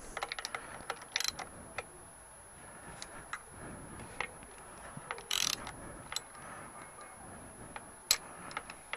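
Socket ratchet and extension working the cam cap bolts on a Kawasaki Z750 cylinder head: scattered metallic clicks and taps, with a few short ratcheting bursts.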